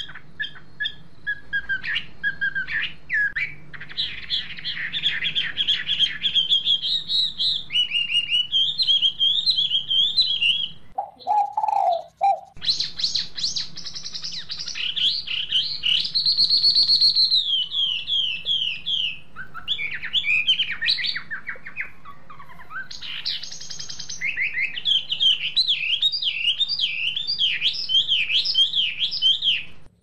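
Small birds chirping and twittering almost without pause, in fast, high-pitched trills and repeated sweeping notes. A short, lower call comes in just before the middle, and the chirping breaks off and restarts abruptly about twelve seconds in.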